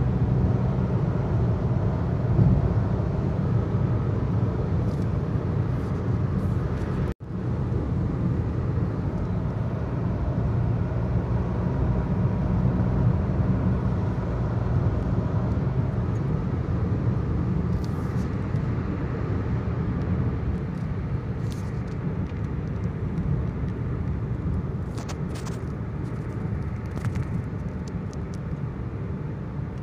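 Steady cabin noise of a car cruising at about 100 km/h: low engine hum mixed with tyre and wind noise. The sound cuts out for an instant about seven seconds in.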